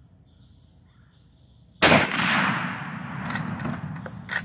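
A single shot from a Mossberg model 4725 CA lever-action .30-30 rifle about two seconds in, its report fading over about a second. Three sharp clicks follow, the rifle's lever being worked to eject and chamber the next round.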